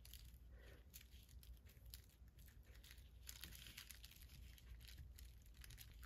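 Faint tearing and rustling of thin tissue paper as it is pulled apart by hand along a line softened with water, a run of small soft crackles.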